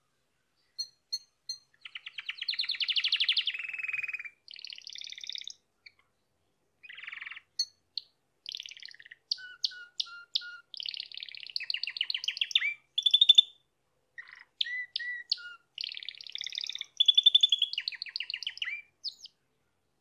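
Yellow domestic canary singing: a few short chirps, then a long run of rapid trilled phrases and chirps with brief pauses between them, stopping just before the end.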